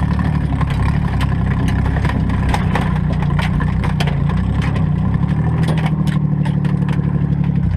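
Modified four-cylinder demolition derby car engine running loud, its pitch shifting a little past halfway, with many sharp clicks and knocks over it.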